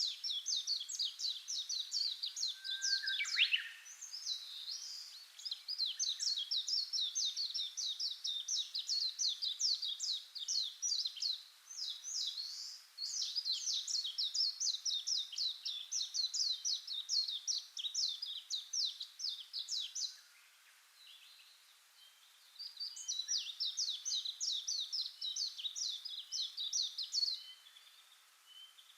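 Songbirds singing: long runs of rapid, high, trilled chirps, broken by a pause of about two seconds after the middle before the trilling starts up again, then tapering off near the end.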